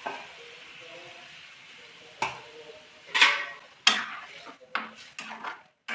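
A spoon stirring thin curry in a cooking pot, knocking sharply against the pot a few times, about two, three and four seconds in, then more lightly.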